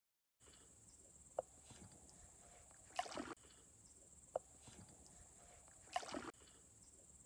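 Paddle strokes of an inflatable kayak on calm water: a short splashy swish of the double-bladed paddle about every three seconds, with a sharp click between strokes, over a steady faint high hiss.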